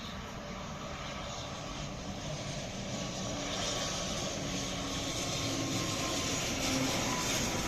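ATR twin-turboprop airliner on final approach to land, its engines and propellers droning with a few steady tones and growing steadily louder as it comes closer.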